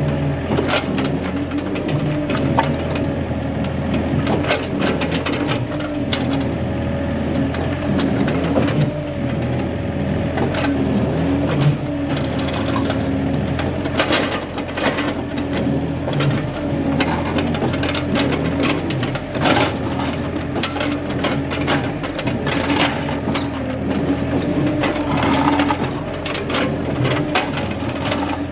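Excavator's diesel engine running steadily with a constant droning hum, with frequent short knocks and scrapes throughout.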